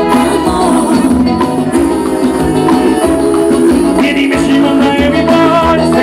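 Forró band playing live: accordion and percussion over a steady beat, with a male singer.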